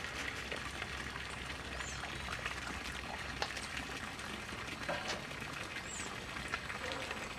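Quiet lakeside ambience: a steady soft hiss with a few faint clicks, and two short high bird chirps, about two seconds in and again about six seconds in.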